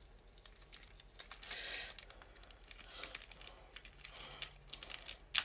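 Plastic bag crinkling and rustling as it is opened and a cable is handled, with scattered light clicks and one sharper click near the end.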